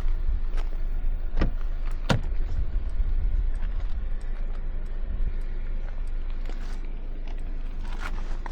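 A 2025 Mercedes-Benz C 200 being driven, with its 1.5-litre petrol engine: a steady low rumble of road and engine noise. Two sharp knocks come about a second and a half and two seconds in, with a few fainter clicks near the end.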